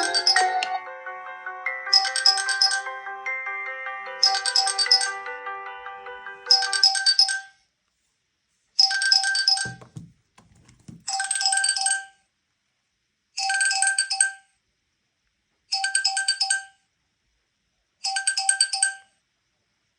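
Smartphone ringtones: a melodic tune fades out over the first seven seconds while a second, bell-like ring repeats. That ring then goes on alone, about one second of ringing every two and a quarter seconds.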